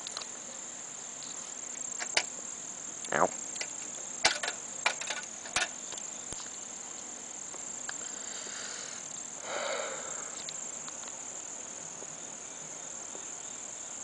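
Steady high-pitched insect chirring, broken by a few sharp clicks and knocks a few seconds in and a short rustling noise a little over halfway through.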